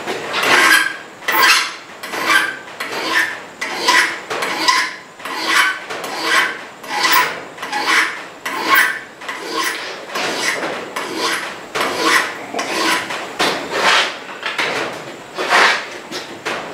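Hand file rasping back and forth across a steel knife tang held in a bench vise, in steady strokes a little over one a second. The tang is being filed down into a tapered rat-tail to fit into an antler handle.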